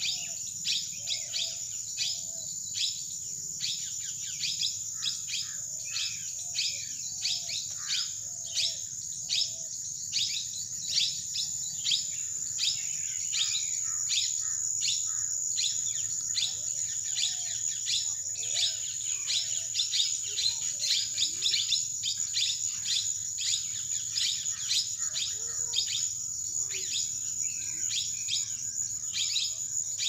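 Birds chirping and calling in quick short notes, several a second, over a steady high-pitched insect drone.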